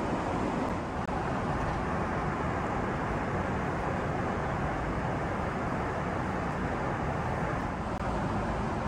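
Steady in-flight cabin noise of a Boeing 777-300ER: an even rush of airflow and engine noise, with a momentary dip about a second in.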